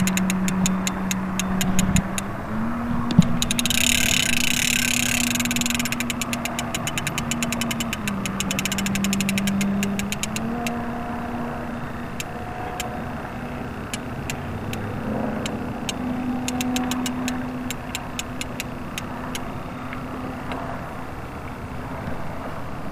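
A motor running steadily, its pitch jumping up and down between a few fixed steps several times, with spells of fast, even ticking over it in the first half.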